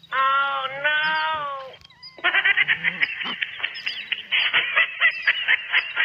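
A cat meowing: one drawn-out meow in two parts that rises and then falls. About two seconds in it gives way to a fast, chattering run of high, squawking sounds.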